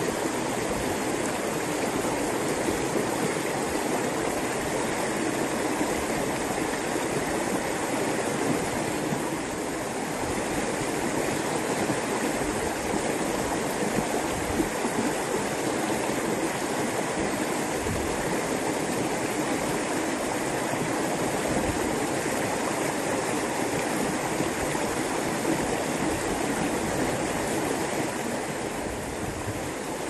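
A small river flowing, a steady, unbroken rush of water.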